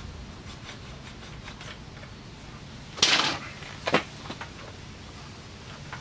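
Metal scraping and a clunk from a pit bike's rear brake caliper being handled and fitted over the brake disc: a short loud scrape about halfway through, then a sharp clunk a moment later, with faint light ticks around them.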